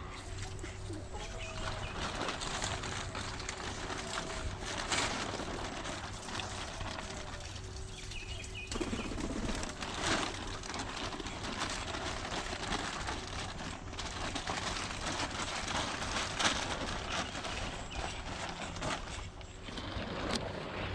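Birds cooing with a short rising call about every second and a half, over a constant rustling, scraping noise with scattered clicks. The cooing stops about a third of the way through, and the rustling gets louder.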